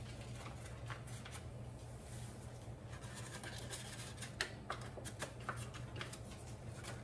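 Faint rustling and scratching of a paper packet of powdered pectin being shaken out into a pot of juice, with a few light ticks near the middle. A steady low hum runs underneath.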